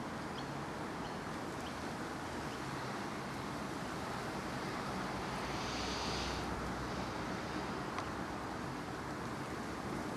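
Steady outdoor background noise: wind hiss with a low hum. A short burst of higher hiss comes about six seconds in, and a faint click about eight seconds in.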